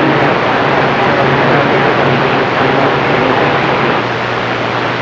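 CB radio receiver hissing with loud static and band noise between transmissions during skip conditions, with faint traces of weak, unreadable signals under the noise. The hiss drops slightly about four seconds in.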